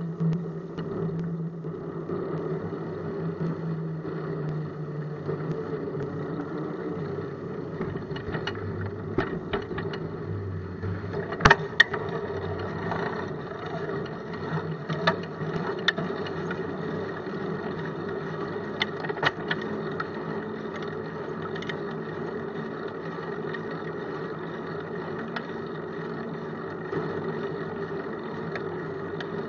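Bicycle rolling over pavement, heard through a camera mounted on the bike: a steady hum with scattered clicks and rattles, the sharpest knock about eleven seconds in.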